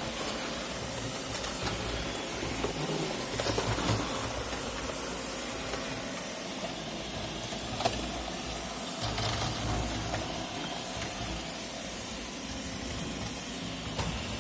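iRobot Roomba e5 robot vacuum running: a steady whirring hiss from its suction motor and brushes, with a few short clicks, the sharpest about eight seconds in.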